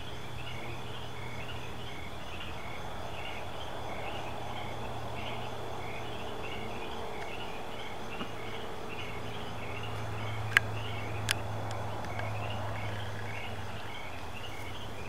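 Male American bullfrog calling with a low, steady drone that grows stronger in the last few seconds, over a regularly pulsing chorus of night insects. Two sharp clicks come a little past the middle.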